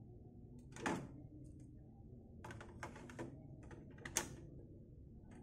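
Mechanical clicks of a TEAC V-377 cassette deck's transport buttons being pressed, a series of short separate clicks over a low steady hum, with a sharper snap about four seconds in as the cassette compartment door is pushed.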